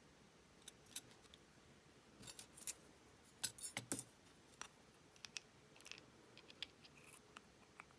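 Small metal parts of a Brady Compact padlock, its locking ball among them, clicking and ticking against the plastic lock body as they are fitted back in. The light clicks are scattered, with two busier bunches about two and a half and three and a half seconds in.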